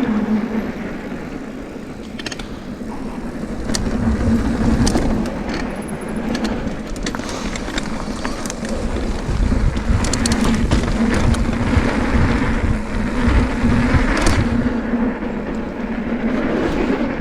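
Mountain bike descending a bike-park trail: a continuous rushing of tyres and air, with irregular sharp clacks and rattles as the bike goes over bumps.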